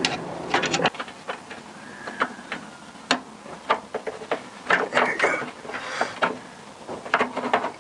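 Irregular light clicks and knocks of metal parts being handled by hand as a nut is fitted onto a bolt through a metal bracket under a car.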